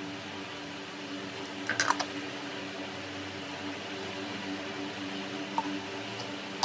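A few light clicks and clatters of a spoon against a steel bowl while mashed potato and onion are mixed, over a steady low hum.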